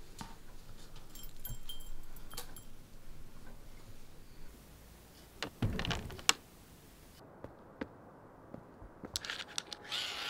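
Quiet handling clicks and rustles, then a louder rustle and one sharp click about six seconds in as the lever handle of a glazed back door is turned and the latch released, followed by a few faint clicks.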